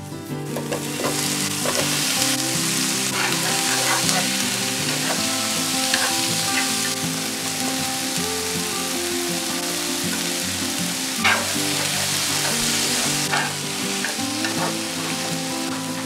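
Courgette slices, red chilli, garlic and spring onion frying in oil in a non-stick pan: a sizzle that rises about a second in and then holds steady. A few sharp clicks from stirring against the pan, the loudest a little past the middle.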